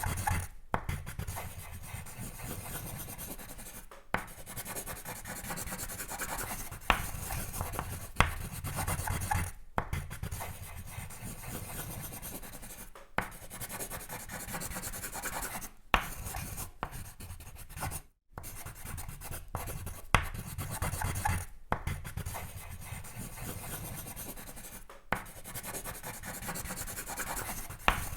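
Pencil sketching on paper: continuous scratchy shading strokes broken by brief pauses every few seconds, with a few sharp ticks among them.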